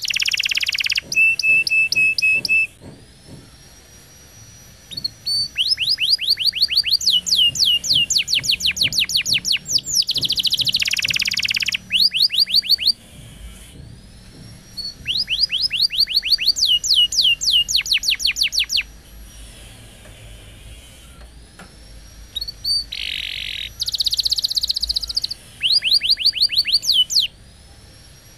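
Domestic canary singing: long phrases of very fast trills of sweeping notes, each run lasting several seconds, with short rough, buzzy stretches and brief pauses between phrases.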